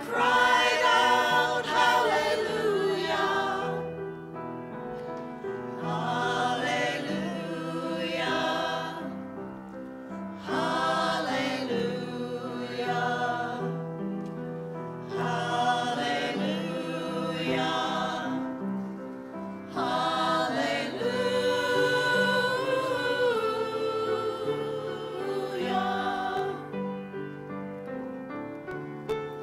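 A small choir of men and women singing together in parts, phrase after phrase with brief breaths between.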